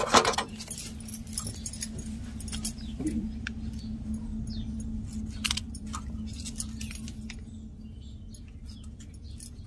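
Scattered light clicks and clinks of a spoon against a bowl and plate as chutney is spooned onto burger buns, over a steady low hum.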